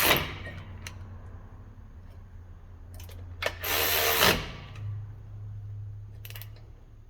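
Tools working on a minivan's new brake caliper assembly: a short loud rattling burst at the start and another lasting about a second a little past halfway, with a few sharp metal clicks, over a steady low hum.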